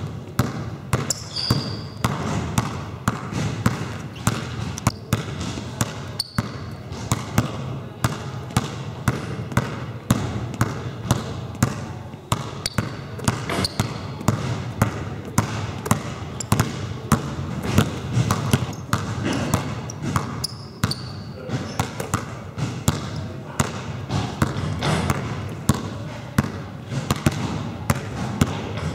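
Two basketballs dribbled at once on a sports-hall floor, bouncing in a steady, fast rhythm of sharp thuds, the balls alternating hand to hand.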